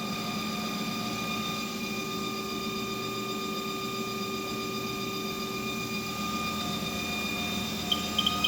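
Haas ST-20 CNC lathe running, a steady mechanical whine made of several tones together. The pitch begins to rise near the end, with a quick run of chirping pulses.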